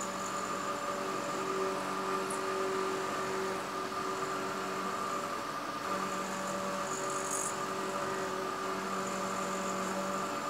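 Vertical knee mill running as an end mill cuts a step into a metal clamp part held in a fixture. It makes a steady machining hum with several pitched tones that swell and fade as the cutter works along the cut.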